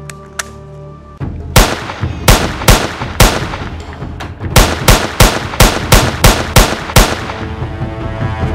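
Gunshot sound effects: about a dozen sharp shots, four spaced about half a second apart, then a quicker run of eight at about three a second, over background music.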